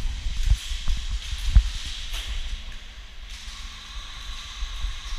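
Footsteps and gear handling noise of an airsoft player moving on a concrete floor: a few soft thumps in the first couple of seconds, then quieter.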